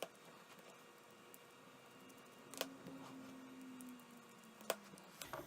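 Near-quiet room tone with a few faint, sharp clicks of a small screwdriver and tiny screws being worked out of a phone's internal plate. A faint low hum runs through the middle and sinks slightly in pitch.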